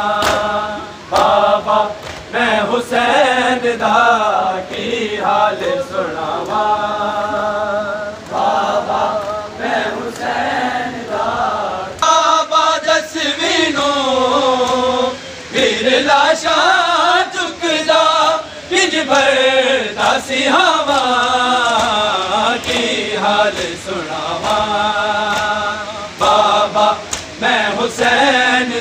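Men chanting a Shia noha (Muharram lament) together in a loud, wavering melody, with sharp slaps of hand-on-chest matam beating cutting through it.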